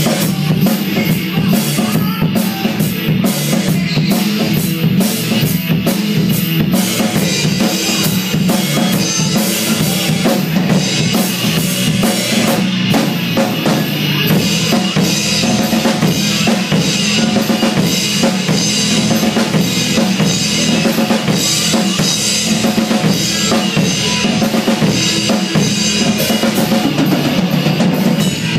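A drum kit played without a break, bass drum, snare and cymbals keeping a steady beat, along with a recorded song with held instrument tones coming from loudspeakers.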